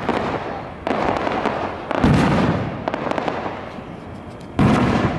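Aerial fireworks shells bursting overhead: three sudden booms, about a second in, at two seconds and near the end, each fading away over a second or more. Between them comes a rapid crackling from the strobing and crackling star effects.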